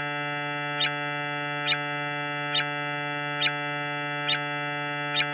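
Space 'sound' presented as the moon Himalia of Jupiter: a steady electronic drone of several stacked tones, with a short, bright click a little more than once a second. It is likened to a dial-up internet connection.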